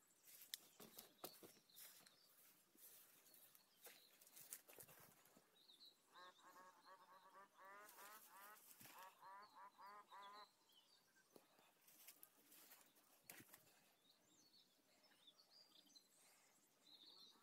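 Faint outdoor ambience. About six seconds in, a bird gives a rapid series of short, harsh, pitched calls for about four seconds, with small birds chirping faintly and a few faint clicks near the start.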